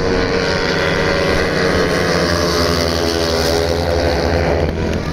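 Several speedway bikes racing together, their single-cylinder methanol engines making a loud, steady engine note that rises and falls slightly in pitch. The sound eases a little near the end.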